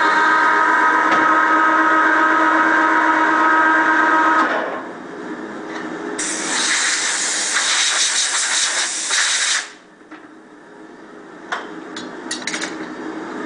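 Meuser metal lathe from 1955 turning an aluminium workpiece: the cutting tool in the cut gives a steady multi-toned whine over machining noise, which stops abruptly about four and a half seconds in as the cut ends. A loud hiss follows for about three seconds and cuts off sharply, then a few light clicks as the tool post is handled.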